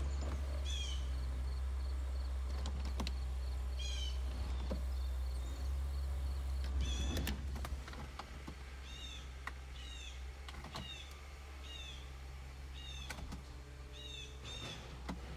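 Car interior: scattered switch clicks over a steady low hum, and the hum drops in level about halfway through. A bird chirps over and over in the second half.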